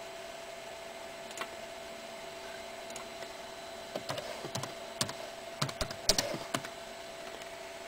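Computer keyboard keys clicking: a single tap, then a short, uneven run of about a dozen keystrokes, over a steady faint electrical hum.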